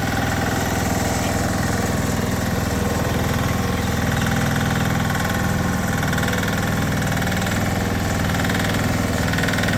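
Excavator's diesel engine running steadily at an even, low speed.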